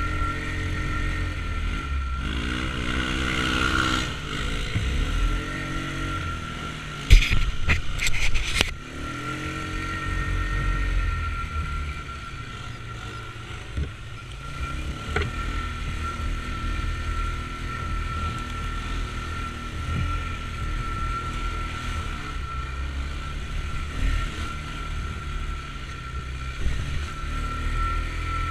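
Side-by-side UTV engine revving in repeated surges, its pitch rising several times, then running along at a lower, uneven throttle. About seven to nine seconds in there is a loud burst of sharp knocks.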